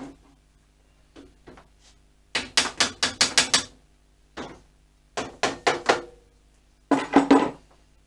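Metal tools and steel parts clattering and knocking together in three quick runs of sharp clinks, the longest about two seconds in, the next two about five and seven seconds in.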